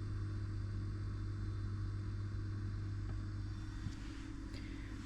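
A steady low mechanical hum, with a faint tick or two near the end.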